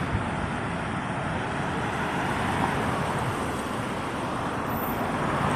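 Steady road traffic noise from a line of cars driving along the street, growing a little louder near the end.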